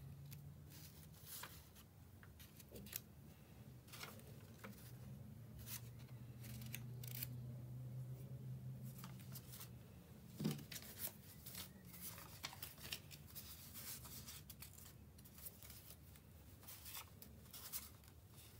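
Paper sheets handled and laid down on a tabletop: faint scattered rustles and crisp ticks, with one louder tap about halfway. A low steady hum runs underneath, strongest in the middle.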